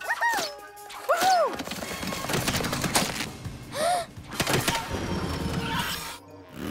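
Cartoon action soundtrack: background music with scattered thuds and three short swooping rise-and-fall sounds, the first near the start, another about a second in and the last about four seconds in.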